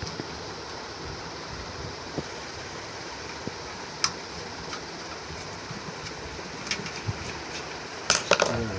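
Scattered metallic clicks and clinks as a ceiling fan's blades and screws are handled and removed, over a steady background hum, with a burst of louder clatter near the end.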